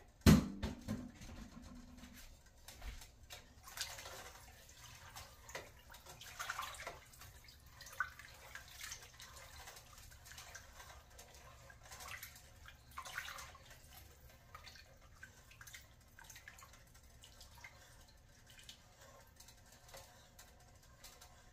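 A single loud clank just after the start that rings for about a second and a half. Then faint, scattered splashes and drips as vegetables are pushed by hand down into a pot of broth.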